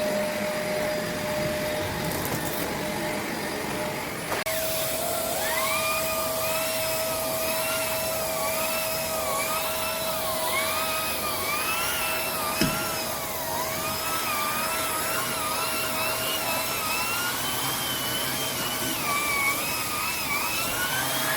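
Shark NV501 vacuum cleaner running with a steady motor whine. From about four seconds in, a higher whistle keeps rising and dipping as the suction is worked over carpet. There is a single light knock about halfway through.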